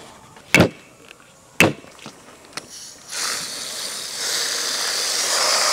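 Two hard axe chops about a second apart, cutting off a spiny softshell turtle's head against a table. From about three seconds in, a hose spray nozzle hisses steadily as water rinses the turtle.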